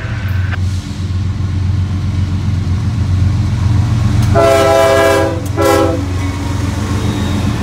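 CSX diesel locomotives at the head of a coal train rumbling past close by. Their air horn sounds a blast of just under a second about four seconds in, followed by a short toot.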